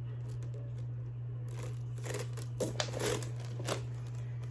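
Short rustles and clicks from a leather handbag and its strap and chain being handled, a few scattered ones in the middle, over a steady low hum.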